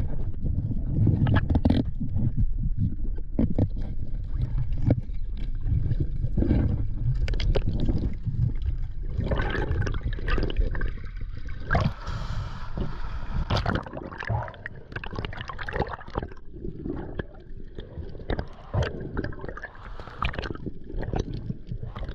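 Water gurgling and knocking around a freediver underwater, with a brighter rush of splashing about halfway through as he breaks the surface.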